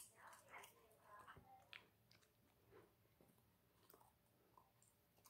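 A Chow Chow puppy chewing a piece of raw carrot: faint, irregular crunching and wet mouth clicks.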